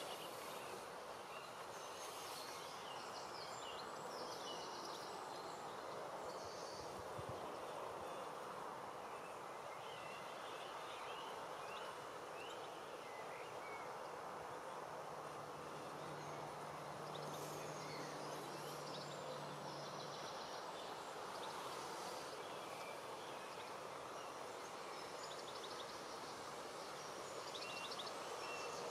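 Faint outdoor ambience: a steady background rush with scattered short bird chirps. A low steady hum comes in about halfway through and lasts around five seconds.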